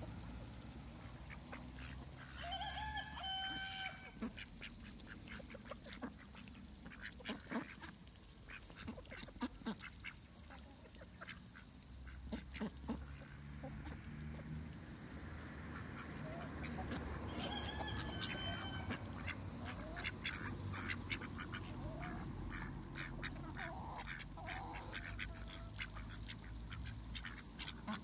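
A mixed flock of ducks and chickens feeding on scattered grain: many quick clicks and pecks of bills and beaks picking at the grain, with a short duck call about three seconds in and another around seventeen seconds, and a few soft calls near the end.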